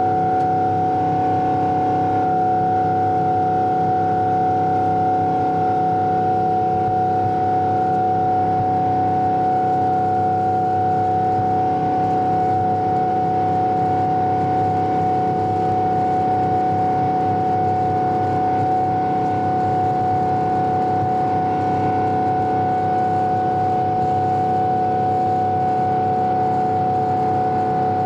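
Boeing 777 jet engine noise heard inside the passenger cabin: a steady rumble with a constant whining tone over it, holding level throughout.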